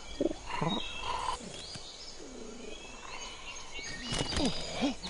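Forest ambience with birds chirping and whistling throughout, and a few short, low falling vocal grunts near the start and again about four seconds in.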